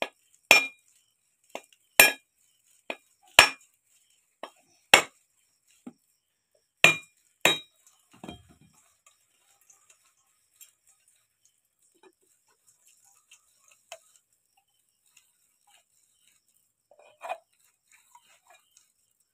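A heavy knife striking a whole coconut, cracking it open. There are about six hard, ringing knocks over the first eight seconds, with lighter taps between them. After that there are only faint small sounds, and one more knock comes near the end.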